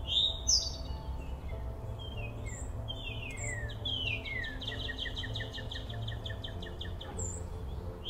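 Wild songbirds singing: a sharp whistled note at the start, then a string of down-slurred notes that runs into a fast trill of repeated notes for about three seconds. A steady low rumble lies underneath.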